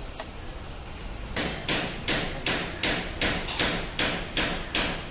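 A steady series of sharp taps, about two and a half a second, starting about a second and a half in: a pointed tool being struck into the plastic body of a diesel fuel pump module to punch holes in it so it can draw diesel more readily.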